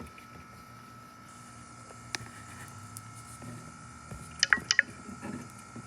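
Ruud Achiever outdoor air-conditioner condenser with a scroll compressor, running steadily with a low hum and a thin, steady high tone. A single click comes about two seconds in, and a quick cluster of three or four sharp clicks, the loudest sound, comes a little past halfway.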